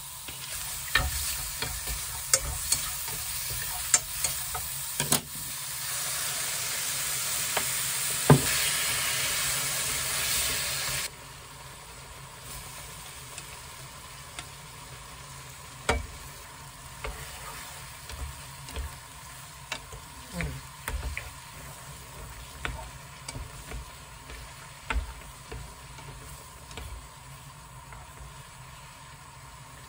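Shrimp sizzling in melted butter in a frying pan, with a few utensil clicks. About eleven seconds in it cuts to a much quieter pan of thick cream sauce, with wooden chopsticks clicking and knocking against the pan as spaghetti is stirred in.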